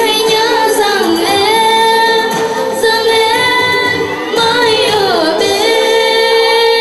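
A young woman singing a sentimental Vietnamese song into a handheld microphone over a PA, the melody gliding between held notes. From a little after five seconds in she holds one long steady note.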